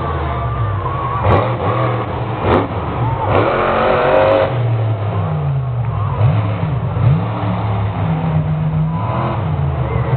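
Monster truck engine running loud and continuous, its pitch climbing and dropping again and again as the driver revs on and off the throttle.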